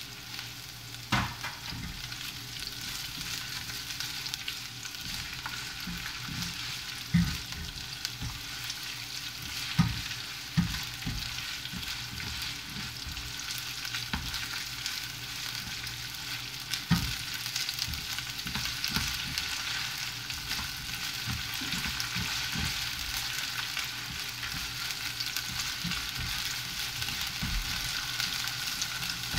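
Chopped green onion, garlic, ginger and chili flakes sizzling steadily in hot oil in a nonstick frying pan, stirred with a silicone spatula, with a few knocks of the spatula against the pan.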